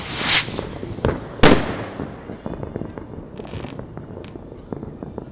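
Fireworks going off: a swelling rush of noise in the first half second, then two sharp bangs about a second in, the second the loudest, followed by a scatter of fainter pops and crackles.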